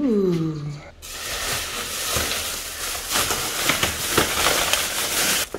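A short exclamation in a voice that rises then falls, then thin plastic grocery bags rustling and crinkling loudly as they are grabbed and lifted; the rustling cuts off suddenly near the end.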